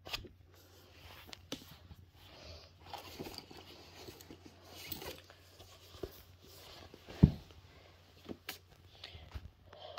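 Handling noise as paperback books are moved about and laid on a wooden floor: soft rustles, scrapes and clicks, with one low thump a little after seven seconds in.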